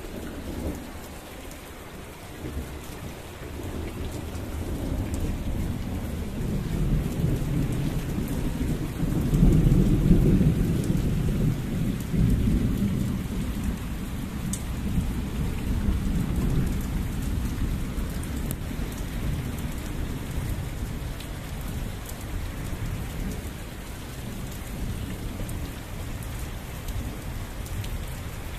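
Heavy monsoon rain pouring steadily onto the ground, with a long roll of thunder that builds a few seconds in, is loudest about a third of the way through, and then slowly fades away.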